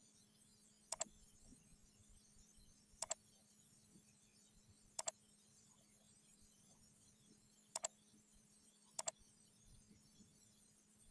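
Computer mouse clicking: five sharp double clicks, each a quick press-and-release pair, spaced one to three seconds apart, over a faint steady hum.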